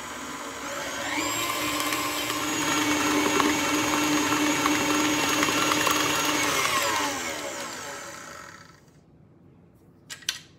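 KitchenAid Artisan tilt-head stand mixer running, its flat beater working a thick cream cheese mixture. The motor speeds up about a second in, runs steady and loud, then winds down with a falling whine a few seconds before the end. Two sharp clicks follow near the end as the mixer head is unlocked.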